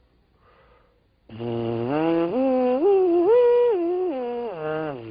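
A low-brass mouthpiece buzzed on its own, with no instrument attached, slurring from a low note up by steps to a high note and back down to the low note again. This is a lip-slur exercise in which the lower jaw moves with the direction of the notes. The buzz starts about a second in and is still going at the end.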